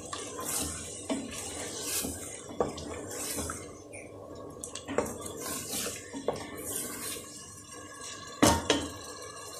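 A spoon stirring and scraping chicken pieces frying in masala in an aluminium pressure cooker, with a steady sizzle and irregular clicks of the spoon against the metal pot. There is a louder knock near the end.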